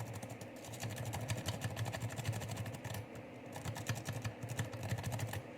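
Snake-rake lock pick raked rapidly in and out of a Euro cylinder lock's keyway, its tip rattling over the pin stacks in a fast run of small metallic clicks. The raking is aimed at setting the pins to a false set.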